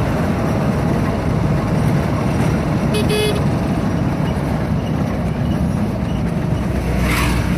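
A moving car's steady road and engine noise, with one short car horn toot about three seconds in.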